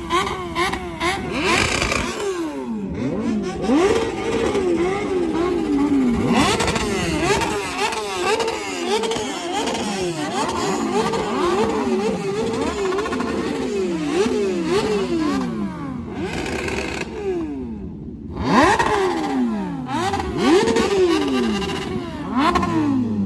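Superbike engine revved hard again and again, its pitch sweeping up and falling back repeatedly, with a brief lull near the end before it is revved again. Loud enough to make the ears hurt.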